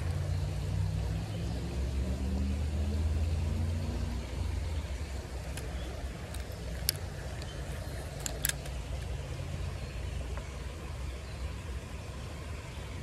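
Low engine hum of a motor vehicle, strongest for the first four seconds and then dying away, with a few faint sharp clicks.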